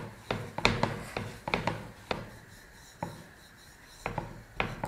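Wooden rolling pin rolling out bhatura dough on a floured wooden board: quick knocks and rubbing as the pin rocks back and forth, about four strokes a second, pausing a little after two seconds in and starting again near the end.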